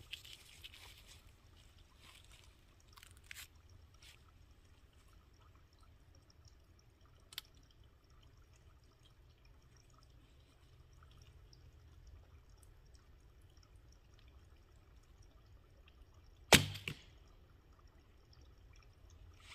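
A 50 lb Bushmen Spartan Longcurve traditional bow is shot once, about three seconds before the end: a single sharp snap of the string on release, then a smaller knock a moment later that fits the aluminum arrow striking the target. Before the shot there are only a few faint handling clicks over a low steady rumble.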